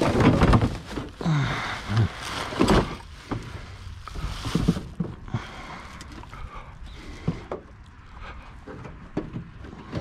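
Metal microwave oven being wrestled and slid into place: scraping and clunking, with several loud scrapes in the first five seconds, then lighter scattered knocks.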